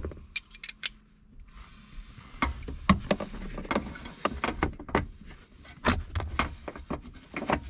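Hand tools on a bolt: a string of irregular sharp metal clicks and clinks as a socket and ratchet are swapped and tried on a bolt, with low knocks from handling.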